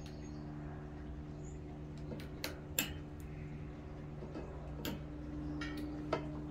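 Scattered small metal clicks and clinks as a snap ring is worked into place over the rear cog on a Bendix Red Band coaster brake hub, over a steady low hum.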